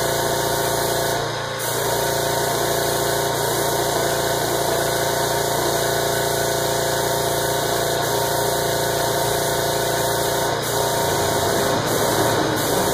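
Small tankless direct-air diaphragm compressor running steadily, with the hiss of air and paint from an HVLP gravity-feed spray gun as a coat is sprayed. The compressor's bleed valve is cracked open so some air escapes all the time, sparing the diaphragm. The sound dips briefly about a second and a half in.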